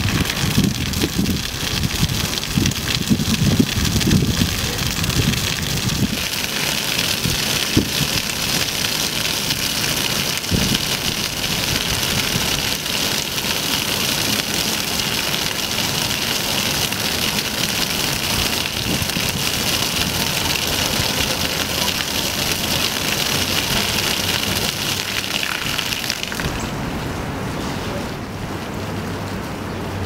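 Fountain water jet spraying onto wet stone paving, a steady rain-like hiss and splatter. The jet stops about four seconds before the end, leaving a faint low hum. There is a low rumble in the first few seconds.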